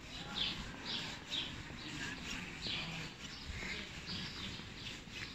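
A bird chirping repeatedly, short high chirps roughly every half second, over a low hum of city street noise.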